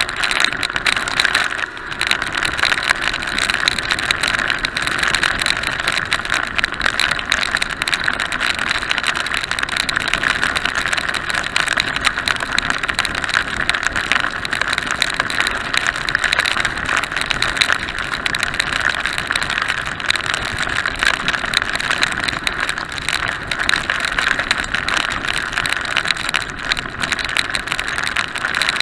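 Steady rushing wind and rain noise on a motorcycle-mounted action camera riding at speed through a heavy downpour, with a fine crackle of raindrops hitting the camera.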